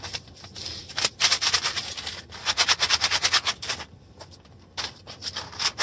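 Coffee beans clattering: runs of rapid sharp clicks, the longest and loudest near the middle, with short pauses between them.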